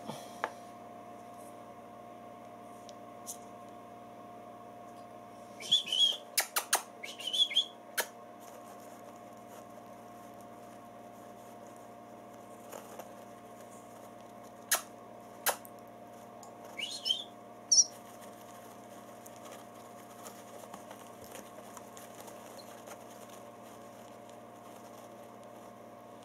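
Nestlings, taken for starlings, giving short high begging chirps in two brief bursts, about six seconds in and again around seventeen seconds, mixed with a few sharp clicks, over a steady background hum.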